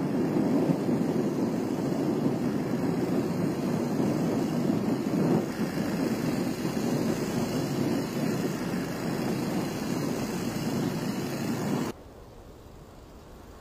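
Engine-driven propeller on the front of a motorcycle running at speed, a steady noisy drone. About twelve seconds in it drops abruptly to a much fainter level.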